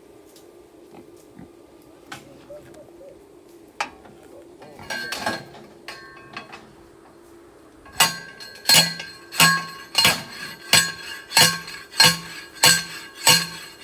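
Steel T-post being driven with a manual post driver: a series of ringing metal clangs, about three every two seconds, starting about two-thirds of the way in, after some lighter metal clatter.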